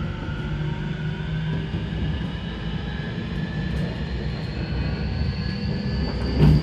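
JR Kyushu 811 series electric train running, heard inside the motor car: the traction motor whine climbs steadily in pitch as the train gathers speed, over the rumble of the wheels on the rails. A loud knock comes near the end.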